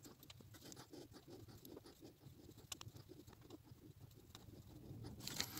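Faint, irregular small clicks and scrapes of a hand turning a new engine warm-up sensor into its threaded port by hand.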